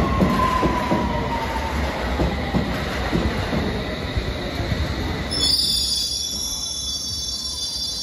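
London Underground S-stock train on the move along the platform: a heavy rumble with rhythmic wheel clicks and a motor whine falling slowly in pitch as it slows. About five seconds in the rumble drops away and a high squeal of several shrill tones takes over.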